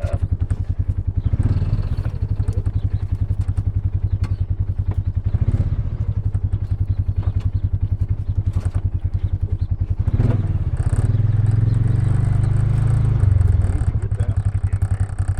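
A vehicle engine running steadily with a fast, even pulse. It gets louder for a few seconds about two-thirds of the way through, and light rattles and clatter come over it.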